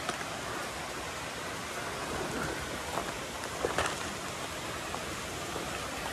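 Steady rushing of a mountain stream, with a few light crunching footsteps on the stony trail a little past the middle.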